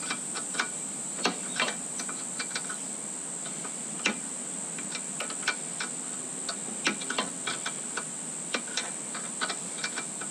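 Irregular light metallic clicks and taps of a spanner working a bash-plate bolt as it is tightened, over a steady high-pitched drone of insects.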